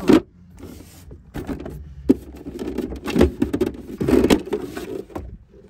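Hands rummaging in a plastic center-console storage bin, lifting out its loose tray and contents: scraping, rattling and knocking of plastic, with one sharp click about two seconds in.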